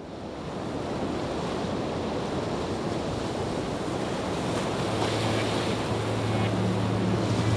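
Steady rushing noise of ocean surf, fading in at the start. A low steady drone of background music comes in about six seconds in.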